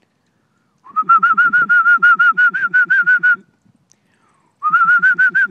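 A person whistling a rapid string of short, high, repeated notes, about seven a second, in two runs, the pitch creeping up slightly through each run: a call for a dog to come.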